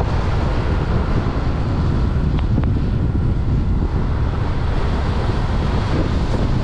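Heavy rain pouring down in a steady, dense rush, with wind buffeting the microphone and a deep rumble underneath.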